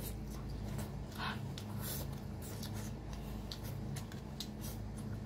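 Close-up eating sounds: chewing with mouth smacks, and fingers picking through a pile of saucy stir-fried shellfish meat, heard as scattered soft wet clicks over a steady low hum.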